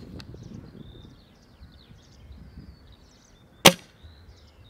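A single short, sharp shot from a Novritsch SSG96 spring-powered bolt-action airsoft sniper rifle, about three and a half seconds in. Faint bird chirps sound in the background.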